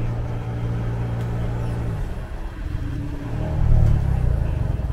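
City bus running: a steady low hum with even tones breaks off about two seconds in, then a low rumble swells, loudest near four seconds in.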